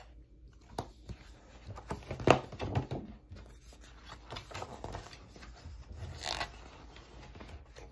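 Paperback picture book being handled and its pages turned: faint, irregular rustling and scraping of paper with a few small knocks, the sharpest about two seconds in.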